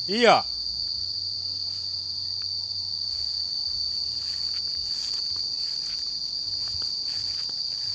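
A continuous high-pitched drone of insects holding one steady tone.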